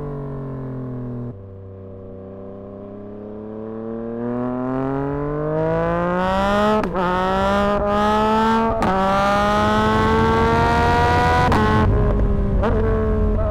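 2024 Yamaha MT-09's inline three-cylinder CP3 engine through a Dominator HP6 exhaust. It slows off the throttle and drops away about a second in, then pulls hard with the pitch climbing through three quick gear changes, easing back near the end.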